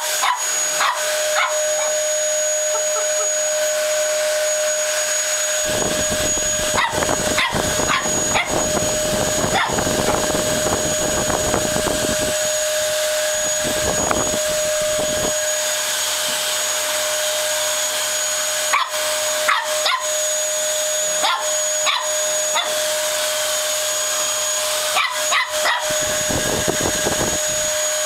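Vacuum cleaner motor running with a steady high whine, and a Lhasa Apso puppy barking and yipping at it in short bouts. A deeper rumble joins for several seconds at a time.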